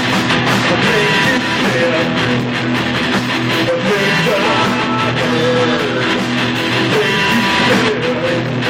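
Live rock band playing loudly, with electric guitar to the fore, recorded on a mobile phone.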